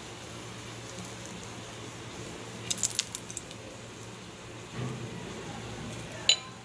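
Bread pockets frying quietly in a little oil in a pan over a low flame, with a few light clicks and taps as a silicone pastry brush spreads oil over them, a cluster about three seconds in and one sharp click near the end.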